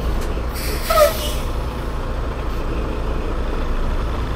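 Heavy diesel truck engines running with a steady low rumble. About half a second in comes a short hiss of air, like an air-brake release.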